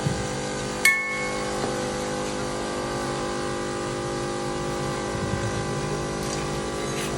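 Workshop machinery running with a steady hum, with a sharp metal clink about a second in that rings briefly, and a fainter knock near the end.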